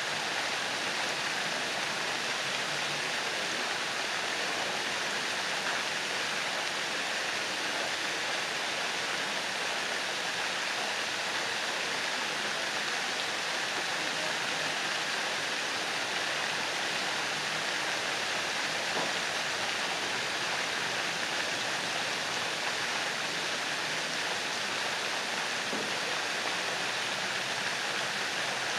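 Pond fountain jets spraying up and splashing back down onto the water: a steady, even hiss of falling water.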